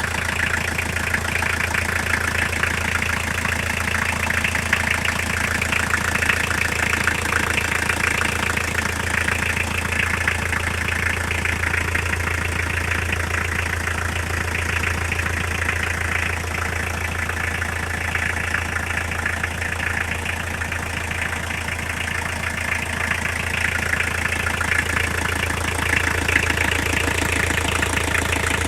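Toyota diesel engine idling steadily, with a rapid, even knock running through it whose cause the owner is trying to find.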